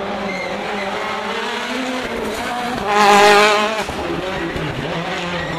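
Rally car engine at high revs as the car passes at speed on a tarmac stage. The sound rises to a loud, wavering peak about three seconds in and then drops away.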